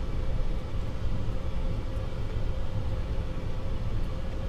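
Steady cockpit noise of a Dassault Falcon 7X business jet on short final: a low rumble of airflow and engines with a faint steady hum above it.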